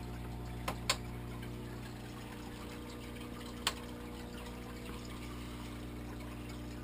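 Aquarium filter running: a steady hum with water trickling and splashing. Sharp clicks twice about a second in and once more a little past halfway.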